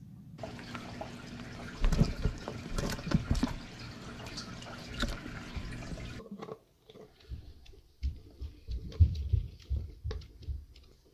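Giant African bullfrogs feeding in plastic tubs: irregular wet clicks and low thumps of lunging and chewing over a steady hiss, which cuts off about six seconds in. After that come scattered thumps and clicks without the hiss, as a young bullfrog goes for worms in its tub.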